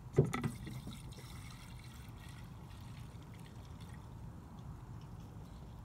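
Premixed two-stroke fuel pouring from a can into the fuel tank of a Stihl FS 91R string trimmer, a steady faint trickle. A short sharp knock comes just after the start.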